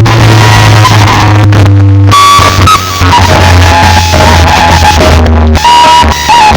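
Very loud music played through a large outdoor DJ sound-box system, with a heavy, continuous bass and a held melody line above it.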